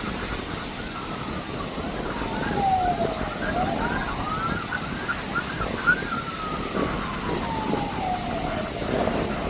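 Fire truck siren passing, switching between a fast yelp and a slow wail that falls, rises and falls again, over wind noise.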